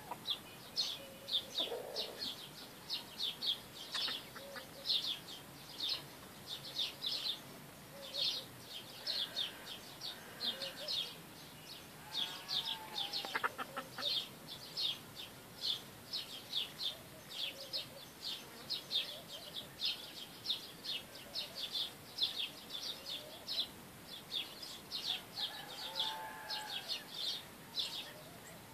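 Small birds chirping rapidly and almost without pause, with baladi village chickens clucking softly a few times underneath.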